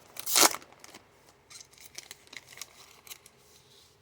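A trading-card pack and its cards being handled: one brief loud crinkle of the pack wrapper about half a second in, then soft flicks and rustles as the cards are slid through by hand.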